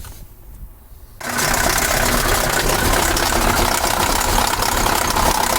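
KAMAZ 740 V8 diesel firing up about a second in and running steadily with the throttle held open, with a knocking chatter from the top of the engine that the owner traces to a cylinder on the right-hand bank.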